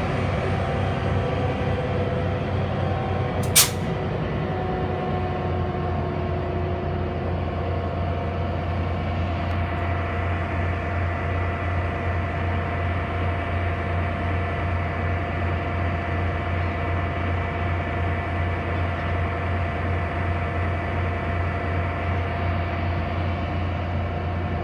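Bombardier ALP-45DP dual-power locomotive running on its diesel engines, a steady low drone with a few steady tones above it. About three and a half seconds in, one short sharp burst of air from its air system cuts across it.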